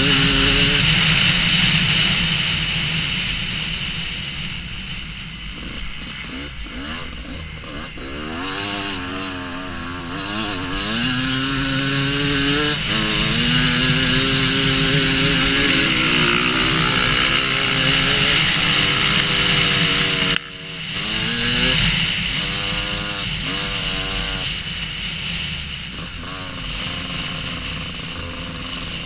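Husqvarna WR250 two-stroke enduro motorcycle being ridden off-road, its engine revving up and down as the pitch rises and falls. About twenty seconds in, the throttle drops off sharply, then picks up again.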